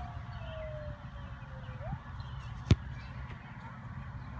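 A single sharp thump of a soccer ball being struck by a kick, about two-thirds of the way in, over a steady low rumble of wind. A faint tone slowly falls in pitch through the first two seconds.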